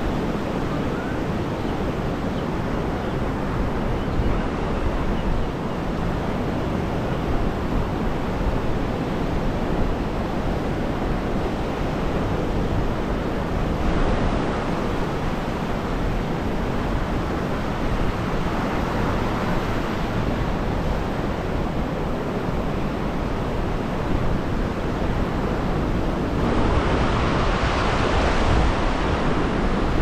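Mediterranean surf breaking and washing ashore in a steady wash of noise, with wind rumbling on the microphone. A wave surges louder and hissier about three seconds before the end.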